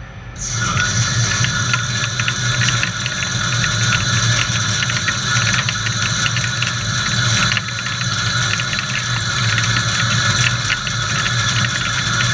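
Samsung SL 30 CNC lathe rough-turning a metal shaft at a 0.2-inch depth of cut: the steady hiss of the cut, crackling with breaking chips, starts about half a second in, over a low machine hum.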